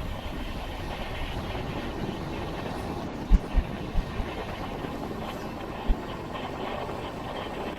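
Passenger train running, heard from inside a sleeper coach: a steady rumbling rush of wheels and air, with a quick run of about four low thumps a little before halfway and one more about six seconds in.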